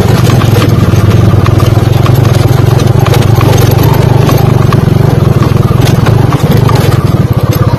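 Motorcycle engine running steadily at low speed, its firing pulses a fast even beat.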